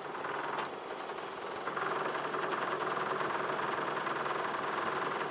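A coaching launch's outboard motor running steadily. It grows a little louder about two seconds in.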